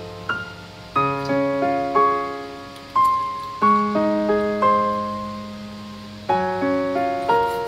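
Background piano music: a slow melody over chords, each note struck and then fading.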